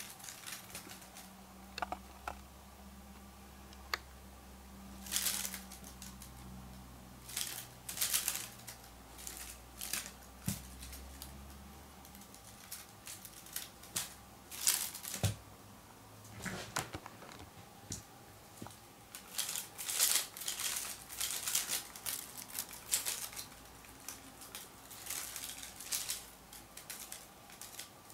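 Intermittent soft rustling and scratching of bed sheets and blanket, in short scattered bursts that come thicker in the second half. A low hum runs underneath for about the first twelve seconds, then stops.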